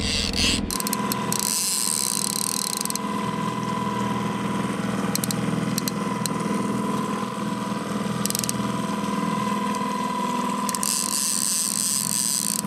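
Line-counter trolling reel being cranked against a hooked king salmon on a dipsy-diver rod, its gears whining steadily, with the boat's motor running underneath.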